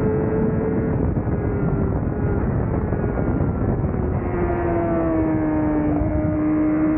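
Honda CBR1000RR-R's inline-four engine running at high revs at racing speed under heavy wind noise. Its pitch sags slowly and drops a step lower about four seconds in.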